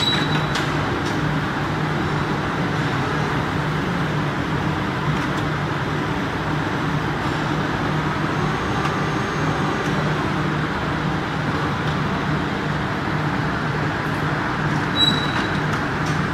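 Steady running hum of a TEDERIC injection molding machine producing plastic caps: a low steady tone under broad machine noise. Short high beeps come at the start and near the end.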